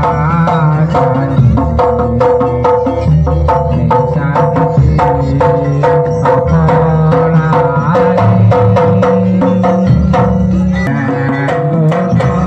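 Javanese jaranan accompaniment music: fast, dense drumming over a repeating pitched melody.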